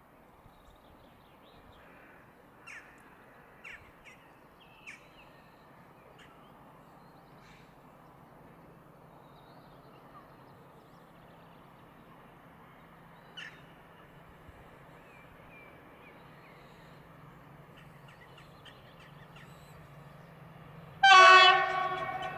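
PKP class 6Dg diesel locomotive approaching slowly with a train of tank wagons, its engine a faint steady hum, then about 21 seconds in it sounds a loud, long horn blast: the Rp1 'attention' warning signal.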